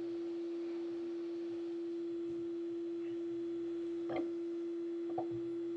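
A steady hum at one pitch throughout, with two short knocks about four and five seconds in as a hand arbor press is worked to press a motor shaft into place.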